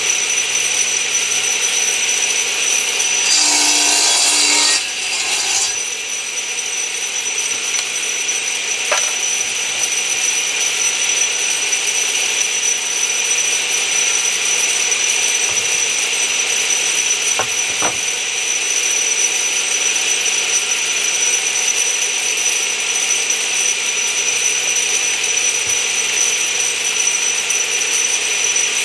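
Woodshop power machinery running steadily with a high whine, and a power saw cutting once through a birch board about three to five seconds in, trimming it to length.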